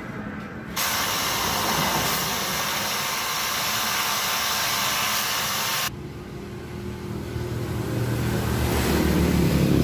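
Bench grinder's abrasive disc buffing the rubber of an inner tube around a broken valve stem, roughening it for vulcanizing: a loud, harsh grinding hiss that starts about a second in and cuts off suddenly about six seconds in. After it, a lower machine hum grows louder.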